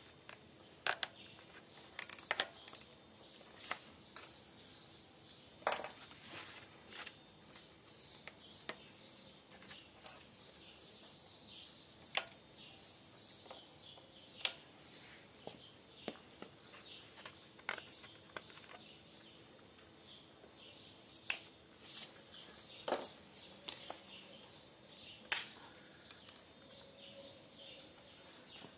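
Irregular clicks and taps from handling a plastic bicycle fender as it is fitted to the frame, with a few sharper snaps standing out.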